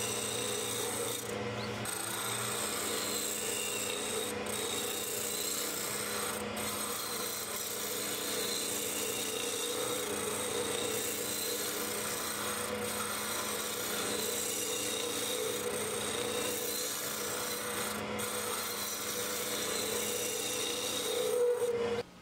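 A hand-held turning tool cutting along an arbutus blank spinning on a wood lathe: a steady scraping hiss of the cut, which stops suddenly near the end.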